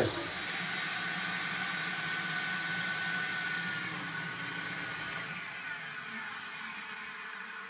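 Wet/dry shop vacuum running steadily with a faint whine as it sucks the last of the flushing water out of a boat's fresh-water tank, fading out near the end.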